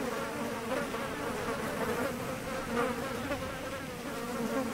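A steady, insect-like buzzing drone that wavers a little in pitch.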